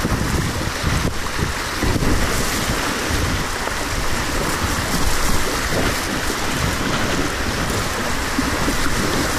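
River whitewater rushing steadily around a kayak, heard from the boat as it runs the rapid, with wind buffeting the microphone.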